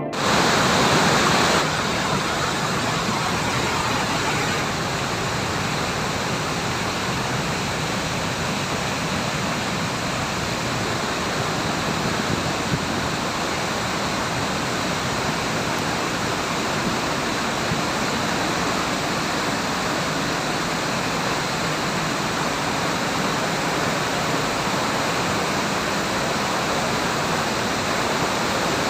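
Thirparappu waterfall swollen by the rainy season: a steady, dense rush of falling water.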